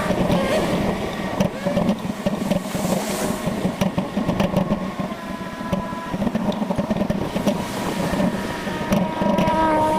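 Wind buffeting the microphone of a camera on a moving bicycle, with irregular rumbling road noise and faint steady whining tones coming and going.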